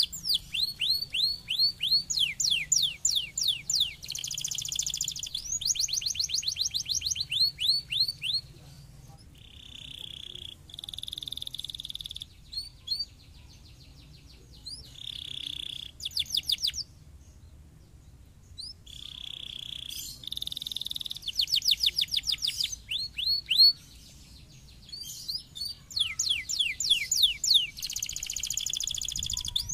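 Domestic canary singing: long phrases of fast, evenly repeated sweeping notes and buzzy rolls, with a brief pause about two-thirds of the way through.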